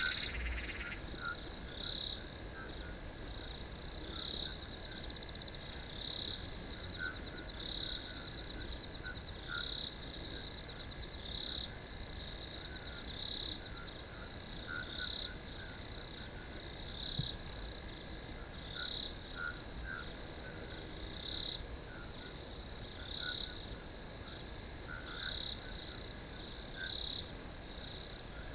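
Crickets chirping: a steady high trill with a louder chirp pulsing about once a second, and fainter, lower chirps scattered through.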